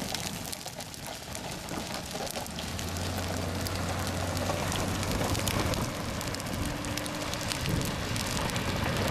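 Steady rain falling on a wet road during a hailstorm, an even hiss dotted with many small sharp ticks of drops striking. A low steady hum sounds for about three seconds in the middle.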